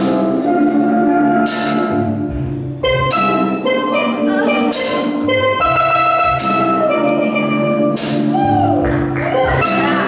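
Live steel band playing: steel pans ringing out a melody over a drum kit, with a cymbal crash about every one and a half seconds.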